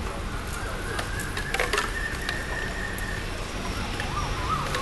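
Hollow bamboo sticks of a homemade wind chime clacking against each other a few times about a second and a half in, as a young elephant pushes under it. Birds chirp faintly around it.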